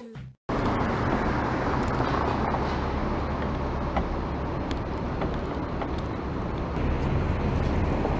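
Steady city street noise: a low traffic rumble with a few faint ticks.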